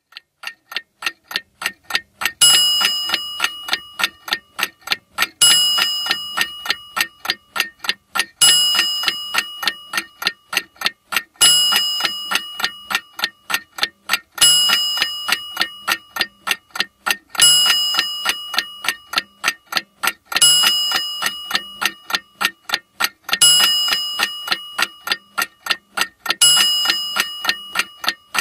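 Clock-ticking sound effect: rapid, even ticks, several a second, with a ringing ding every three seconds that fades away under the ticking. The ticking starts right away, and the first ding comes about two and a half seconds in.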